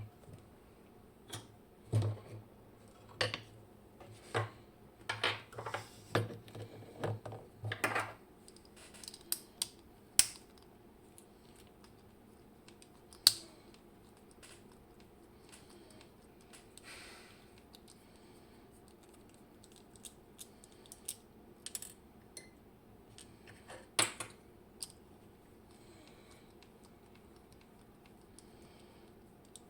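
Small metallic clicks and taps of a Robur safe deposit lock and its tools being handled and taken apart. A busy run of clicks comes first, then scattered single clicks with a few sharper taps.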